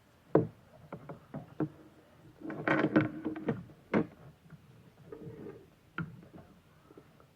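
Hard plastic parts and packaging being handled: a string of sharp clicks and knocks, with a burst of scraping and rubbing about halfway through.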